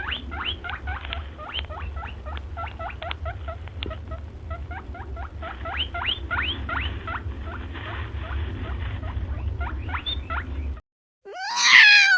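A small animal squeaking in quick short chirps, about three a second, over a low hum. It cuts off near the end, and one louder wavering animal call follows.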